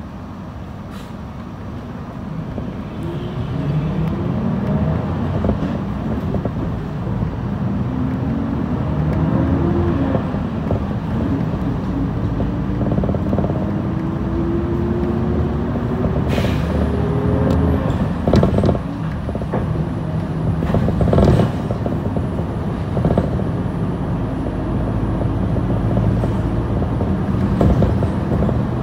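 City bus heard from inside its cabin, pulling away from a stop. The engine and drivetrain grow louder, with a whine that climbs steadily in pitch as the bus gathers speed, then settle into steady running. A few knocks and rattles come about halfway through.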